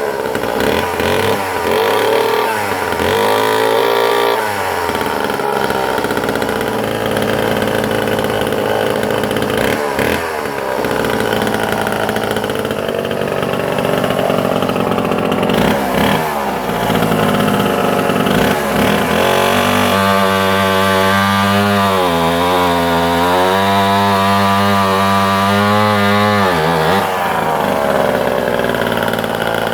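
Vintage Homelite C51 77cc two-stroke chainsaw running hard while cutting through solid ash with an Oregon bar and chain, its engine pitch rising and falling with throttle and load. The pitch wobbles under load for several seconds in the second half, then drops near the end.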